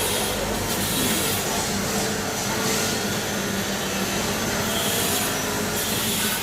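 Electric young-coconut peeling machine running, its blade cutting into the green coconut husk: a steady motor hum under a scraping, hissing cutting noise that swells and fades as the blade bites.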